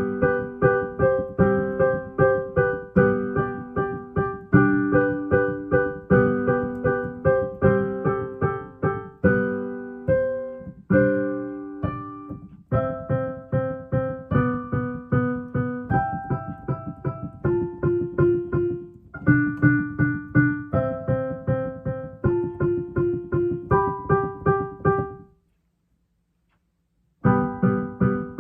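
Solo piano playing a short composition built on intervals and sequences: a brisk figure of repeated notes and chords is played again at shifting pitches. The playing stops about 25 seconds in, there are two seconds of silence, and it starts again near the end.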